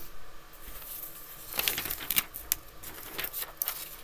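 Sheets of paper rustling and crinkling as a worksheet is handled and turned over. It comes in two spells, about one and a half seconds in and again about three seconds in.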